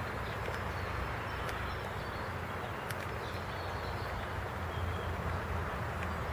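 Outdoor ambience in the wet: a steady hiss with a low rumble underneath, a few faint ticks and a few faint high bird chirps.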